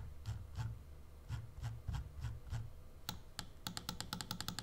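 Clicks from a Razer Viper Mini gaming mouse under the fingers: evenly spaced clicks about three a second, then a fast run of rapid clicks near the end.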